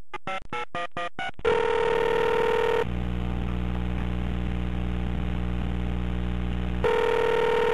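Telephone touch-tone dialing, about seven quick beeps of different pitches, followed by the ringing tone on the line: a steady ring, a stretch of low line hum, then the ring again near the end.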